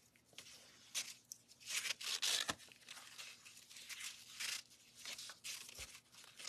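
Ribbon and cardstock rustling and scraping as a satin ribbon is pulled and wrapped around a card panel, in a series of short swishes with a couple of light taps.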